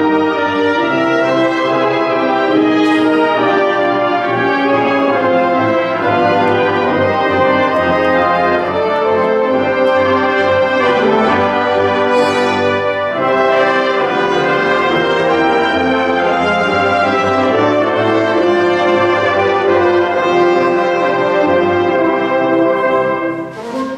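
Concert wind band playing full, sustained brass-led chords. Just before the end the sound dips briefly and then a bright crash comes in.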